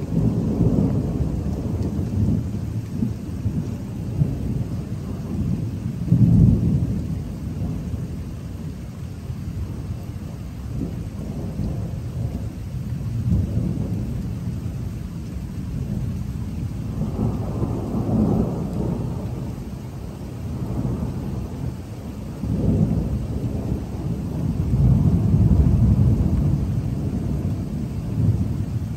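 Thunder rumbling almost without a break, swelling and fading in several long rolls, the strongest about six seconds in and again near the end, with steady rain falling.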